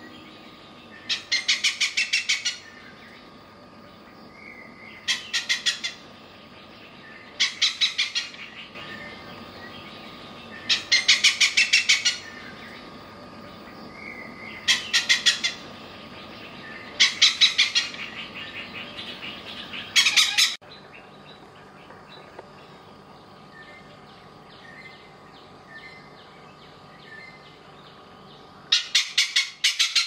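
Male oriental pied hornbill calling loudly in bursts of rapid cackling notes, each burst a second or so long and coming every few seconds. It falls silent for several seconds in the second half, then starts another burst near the end.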